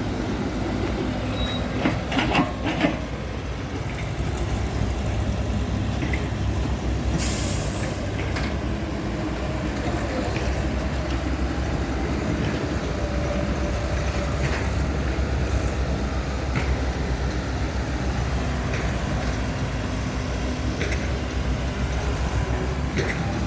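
Heavy dump truck's diesel engine running steadily, with one short hiss of the air brakes about seven seconds in and a few knocks around two to three seconds in.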